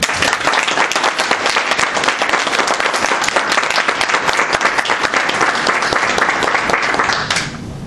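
A small audience applauding with steady clapping that stops near the end.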